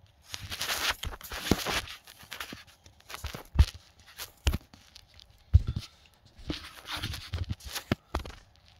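Handling noise from a phone being moved about by hand: rustling and scraping in the first two seconds, a few dull knocks in the middle, then more rustling near the end.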